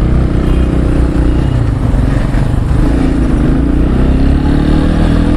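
Loncin Rover motorcycle engine running at low speed in traffic, recorded from the rider's seat. Its note dips a little about three seconds in and then rises again.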